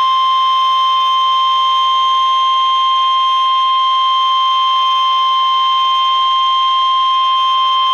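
NOAA Weather Radio 1050 Hz warning alarm tone: one loud, steady, unbroken tone, signalling that a warning (a severe thunderstorm warning) is about to be broadcast.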